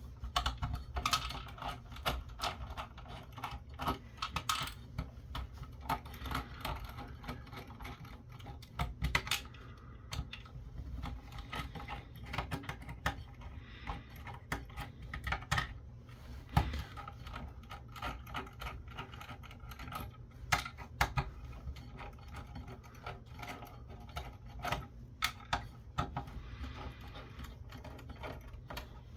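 Irregular small metallic clicks, taps and rattles of screws being backed out and small screws and metal parts being handled and set down, as a computer's motherboard and I/O port screws are removed by hand.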